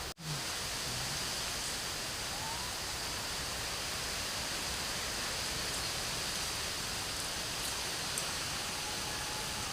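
Steady heavy rain falling in a forest, an even hiss with a few faint ticks. The sound drops out for a split second just after the start.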